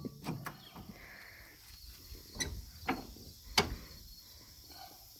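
A few sharp clicks and knocks, spaced irregularly, over a quiet outdoor background.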